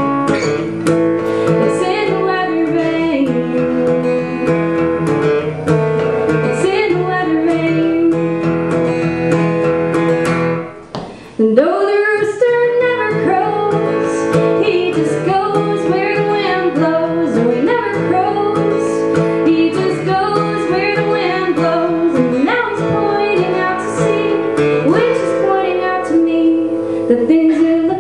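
A woman singing a song while accompanying herself on acoustic guitar. The guitar and voice drop out briefly about eleven seconds in, then come straight back in.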